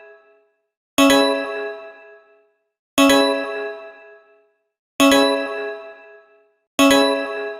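Emergency alert alarm tone: a bell-like chime struck four times, about every two seconds, each strike starting sharply and ringing out before the next.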